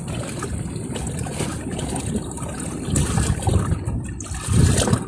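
Sea water washing and gurgling against shore rocks: a steady rushing noise.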